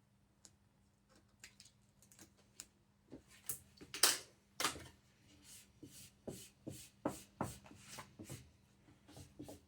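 Self-adhesive vinyl wrap film being worked by hand on a drawer front: a run of irregular short crackles and scrapes. They are sparse at first, come thicker from about three seconds in, and are loudest around four seconds.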